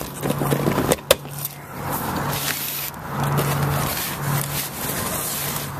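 Fabric skin of a folding kayak rubbing and scraping as it is pulled on over the aluminium frame, with a sharp knock about a second in. A low hum comes and goes behind it.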